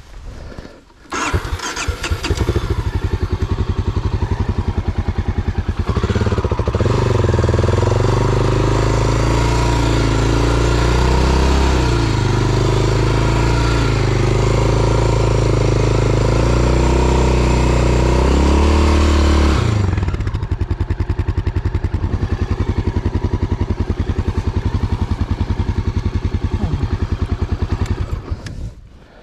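Enduro motorcycle engine starting about a second in and idling. For about fourteen seconds it runs harder, its pitch rising and falling, then drops back to idle and cuts off near the end.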